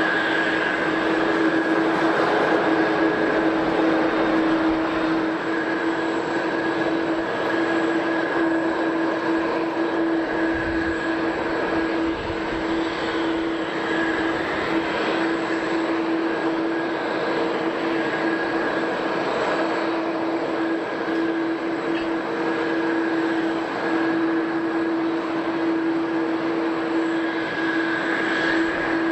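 Jet airliner engines running steadily: an even rushing noise with a constant low hum and a higher whine that does not rise or fall.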